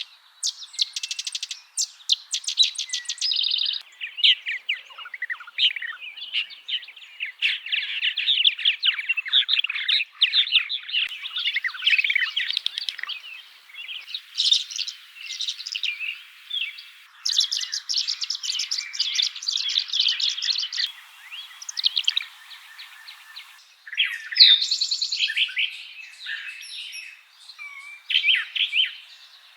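Songbirds singing, several different birds one after another: fast trills at the start, a long jumbled warbling song through the middle, an even rapid trill about two-thirds of the way in, and short varied phrases near the end.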